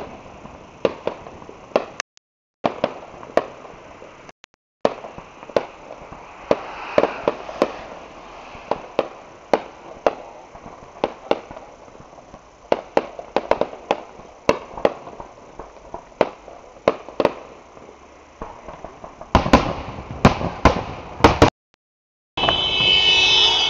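Fireworks display: aerial shells bursting in sharp, irregular bangs and pops, often several a second, growing denser and louder near the end. The sound cuts out completely three times for a moment.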